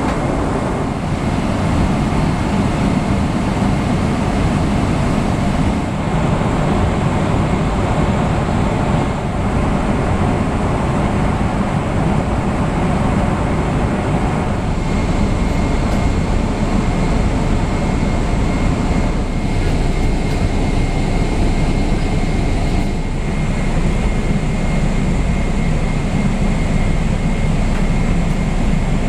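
Boeing 777-300ER cabin noise in cruise: a steady, even roar of engine and airflow, heaviest in the low rumble, with a thin steady whine above it.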